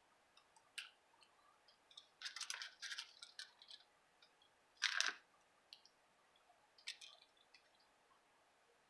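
Faint crackling and clicking as a roll of glue dots on its paper liner is handled and dots are picked off it with a pick tool. The sounds come as scattered small clicks, a run of crackles about two to four seconds in, and the loudest crackle about five seconds in.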